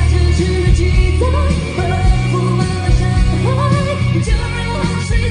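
A male singer's clear voice singing a pop ballad live into a microphone, in phrases with sliding, wavering notes, over a full band accompaniment with steady bass.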